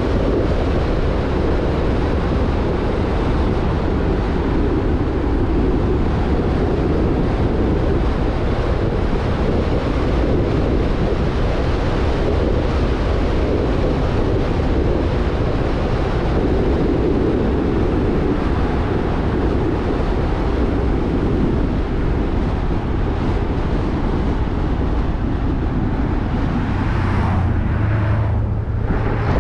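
Jeep Rubicon driving at steady speed: constant wind rush and road noise, with wind buffeting the microphone. A low drone comes in near the end.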